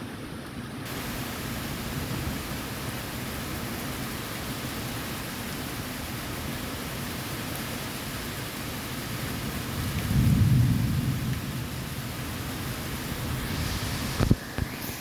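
Thunderstorm: steady rain, with a low rumble of thunder swelling about ten seconds in and fading over a second or two. A sharp click near the end.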